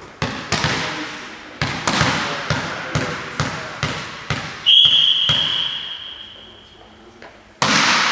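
A volleyball bounced again and again on a sports-hall floor, each bounce echoing. Then the referee's whistle sounds one long steady blast for about two and a half seconds, and near the end comes one loud hit of the serve.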